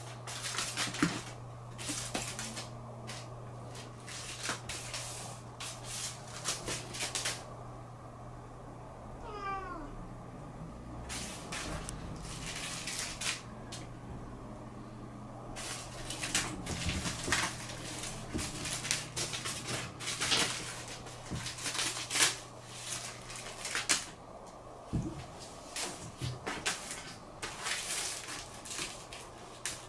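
A pocket tissue packet's plastic wrapper crinkling and skidding on a wooden floor in irregular bursts as a cat bats, bites and kicks at it, with a quieter spell about eight to eleven seconds in.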